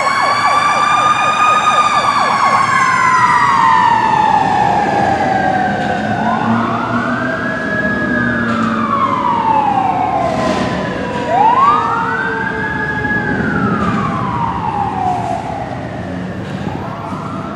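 Fire truck siren wailing, its pitch rising and falling in slow sweeps. More than one siren tone overlaps, each climbing quickly and then sinking slowly.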